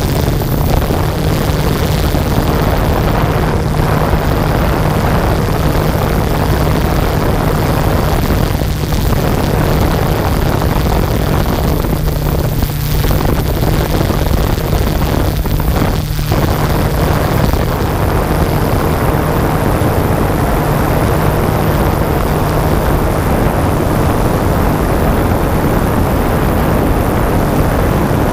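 Yuneec Typhoon G drone's electric motors and propellers droning steadily in flight, heard up close with a constant low hum and rushing noise.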